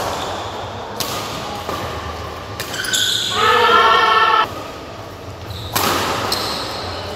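Shuttlecock struck back and forth by badminton rackets during a doubles rally, about four sharp hits echoing in a large hall. The loudest sound is a player's drawn-out shout of about a second and a half between the second and third hits.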